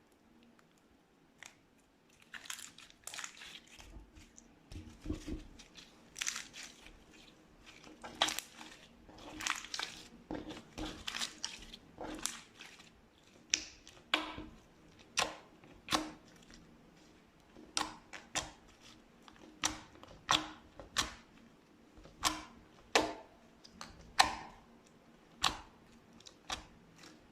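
Slime being squeezed and worked by hand: crackling at first, then a run of sharp pops roughly once a second.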